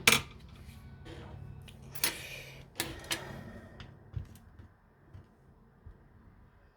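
Small metal clicks and clacks of a padlock and its loose parts being handled and set down on a hard surface: a few sharp knocks in the first three seconds, then fainter ticks that die away.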